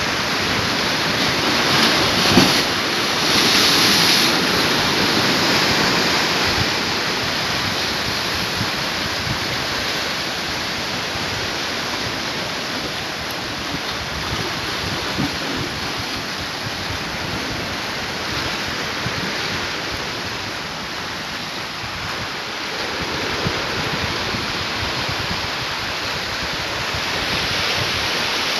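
Sea surf washing and breaking against shoreline rocks, a steady rush of water with a louder swell a few seconds in. Wind buffets the microphone throughout.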